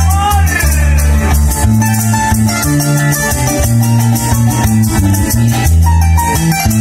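Llanero pasaje played live on harp, cuatro, bass and maracas. A man's sung phrase ends about half a second in, and the rest is the instruments alone, with the harp's runs over a steady bass line and a quick maraca rhythm.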